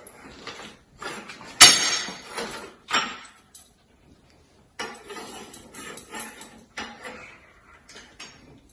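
Hard objects clattering and clinking, with a sharp ringing knock about a second and a half in, another knock a little later, then lighter scattered clatter.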